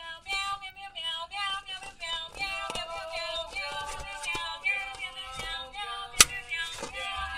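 Musical greeting card's sound chip playing a sung melody, which once its tab is pulled plays non-stop until the battery dies; a sharp click a little after six seconds in.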